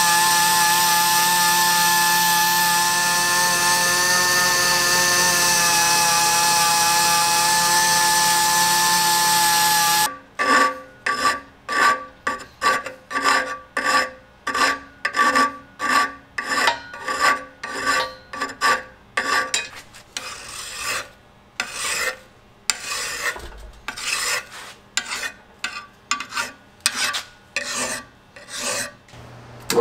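A power tool running steadily with a constant whine, cutting off about a third of the way in. It is followed by rhythmic hand-filing strokes, a rasping scrape repeated about one to two times a second.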